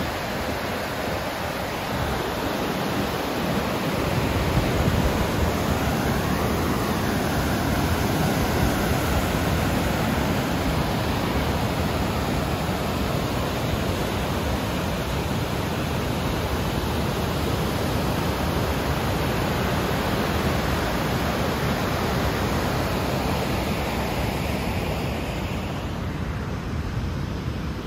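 White water rushing over a dam's outlet weir and spillway, a steady hiss. Wind buffets the microphone, and the hiss thins near the end.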